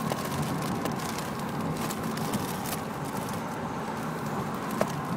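Steady vehicle noise inside a car cabin, with a brief sharp sound near the end.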